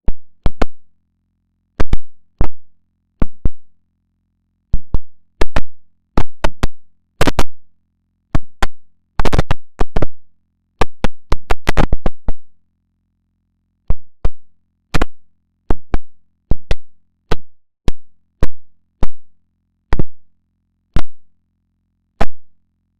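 A string of short, sharp electronic hits, each cutting off within a fraction of a second. They come irregularly, about one or two a second, bunching into quick clusters around the middle.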